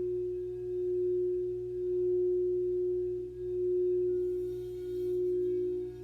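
Singing bowl sustaining one steady tone that swells and fades in a slow pulse about every second and a half. A second, slightly lower tone joins about four seconds in.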